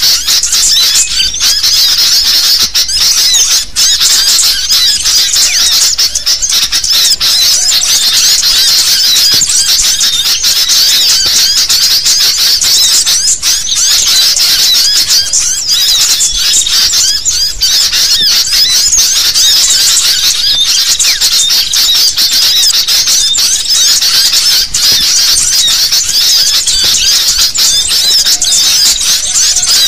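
A loud, unbroken chorus of many sooty-headed bulbuls chattering and calling at once, their quick chirps overlapping densely.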